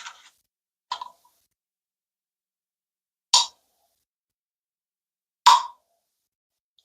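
Eggs knocking against the hard plastic of a Dash Rapid Egg Cooker: short, sharp taps, one right at the start, then three more roughly two seconds apart.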